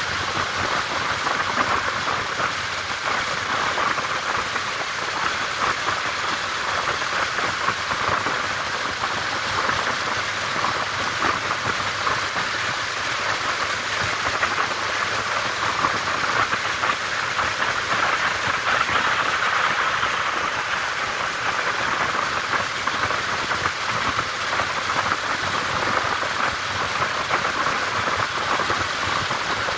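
Steady rush of wind over a camera microphone mounted on a motorcycle riding at speed, a constant hiss with no clear engine note standing out.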